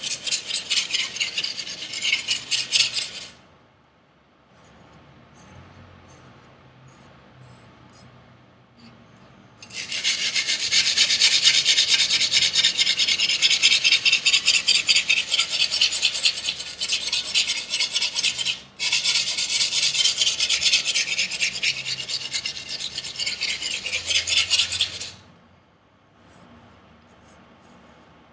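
Chinese chef's knife edge stroked rapidly back and forth on an abrasive, a steady scraping rasp, as the V-edge is blended into a convex edge. A short run of strokes stops, and after a pause of several seconds a long run resumes with one brief break before it stops.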